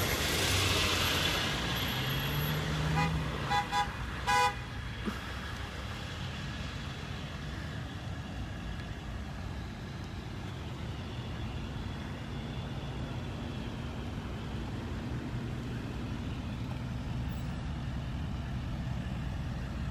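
A line of cars and trucks driving past, with a car horn giving a few short toots about three to four seconds in, then steady traffic noise.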